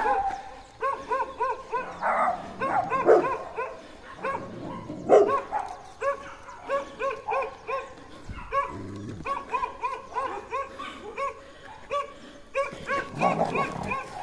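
Dogs barking in a steady string of short barks, about three a second, with a few louder, harsher barks breaking in. This is territorial barking at an approaching dog.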